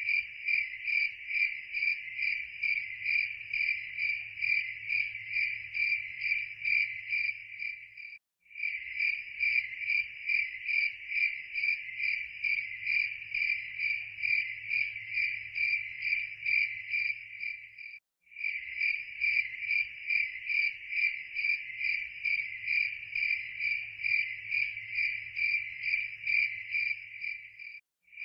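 Cricket chirping steadily and rhythmically, about three high chirps a second, with a brief break roughly every ten seconds.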